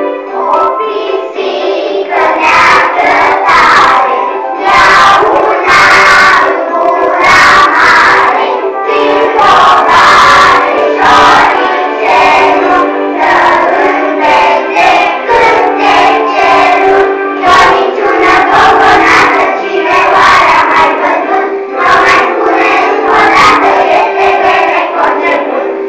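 A group of young children singing together over backing music with keyboard and a steady beat.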